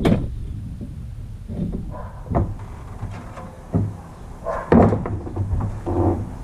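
Several uneven clunks and knocks as a replacement radiator is handled and tilted while being fitted into the engine bay. The radiator is too small to sit with the fan shroud.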